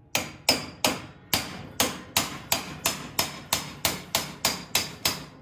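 Hammer striking a dull chisel set against the tabs of a Briggs & Stratton starter clutch: about fifteen sharp metal-on-metal blows, roughly three a second, each with a short ring, to knock the clutch loose from the flywheel.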